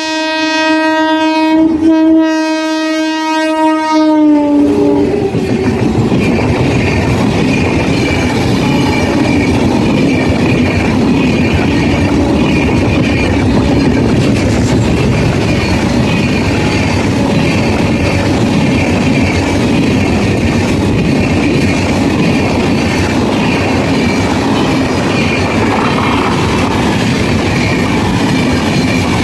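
WAP-7 electric locomotive's horn blowing loud, two long blasts with a short break between, the pitch dropping as it ends while the engine passes. Then the express train's coaches rolling by with a steady rumble and the clatter of wheels over rail joints.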